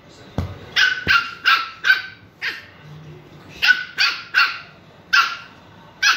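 Three-month-old male Pomeranian puppy barking: about ten short barks in two quick runs with a brief pause between them. A soft thump comes just before the first bark.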